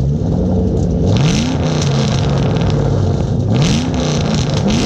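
Ford Shelby GT500 V8 running loud, revved twice: the pitch climbs steeply about a second in, settles, and climbs again around three and a half seconds in.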